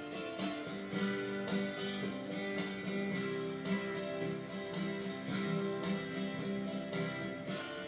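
Recorded country song, acoustic guitar strumming a steady, even rhythm in the instrumental lead-in before the vocals.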